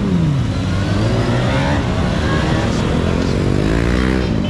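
Motorcycles riding past in a slow procession, engines revving over a steady traffic rumble. One passes close with its pitch falling away just after the start, and engines rev up again near the end.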